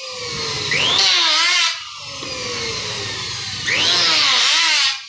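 Electric hand planer running, with two loud cutting passes along a thin wooden strip, about a second in and about four seconds in. The motor's pitch dips as each cut starts, and between passes the planer runs free at a lower level.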